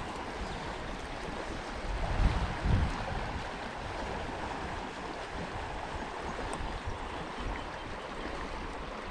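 Trout stream running steadily, a continuous rush of water, with two brief low rumbles about two and three seconds in.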